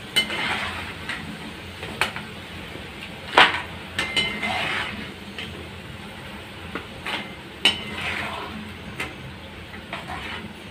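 Perforated metal skimmer clinking and knocking against a frying pan as deep-fried snacks are scooped out, about seven sharp knocks at irregular intervals, over the steady sizzle of the frying oil.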